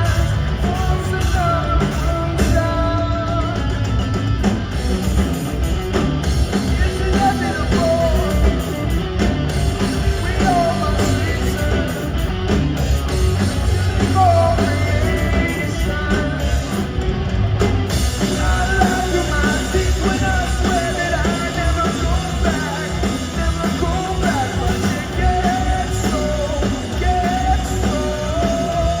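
Live rock band playing at full volume, with sung vocal lines over distorted guitars, bass and drums, recorded from the crowd.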